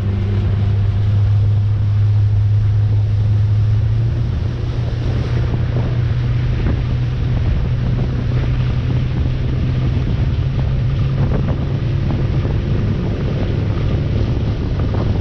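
Boat's outboard motor running at speed with a steady low hum, under heavy wind buffeting the microphone and water rushing past the hull. The engine hum eases somewhat about twelve seconds in.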